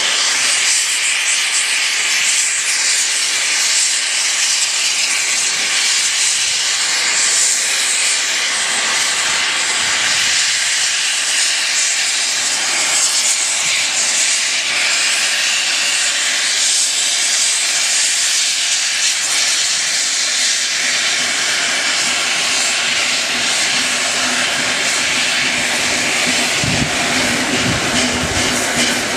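Gresley A4 Pacific steam locomotive hissing steadily as steam blows from low at its front end while it draws slowly forward. A low hum and some low thuds join in over the last few seconds.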